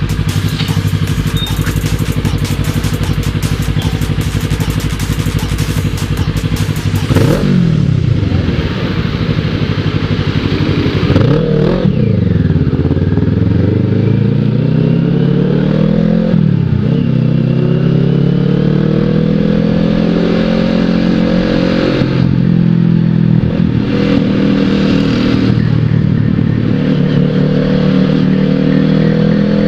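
Kawasaki ER6n's parallel-twin engine ridden through traffic. It holds a steady note for several seconds, then pulls away, its pitch dropping and climbing again three times as it shifts up through the gears, before rising more slowly.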